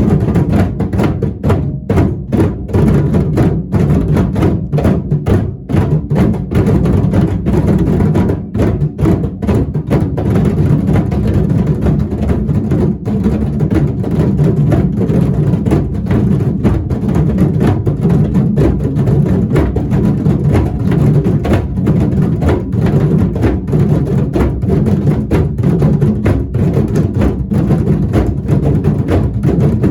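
Music carried by drums and other percussion, with a steady rhythm.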